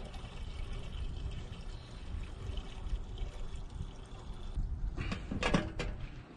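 Gasoline being poured from a gas can into a pressure washer engine's fuel tank, a steady pouring sound, with a short run of sharp knocks about five seconds in.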